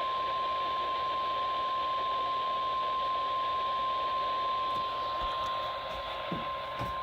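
NOAA Weather Radio warning alarm tone: one steady 1050 Hz tone held for several seconds over radio hiss. It signals that an emergency warning message follows.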